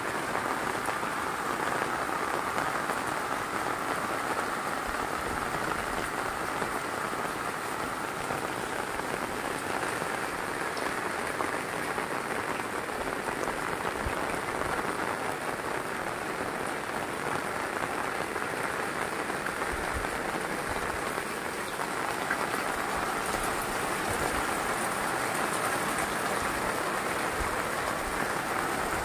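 Heavy rain falling steadily, an even, unbroken hiss of downpour with no let-up.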